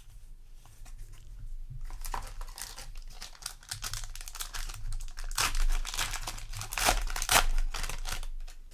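Trading card booster pack wrapper crinkling and being torn open, a run of rustling crackles that is loudest about five and seven seconds in.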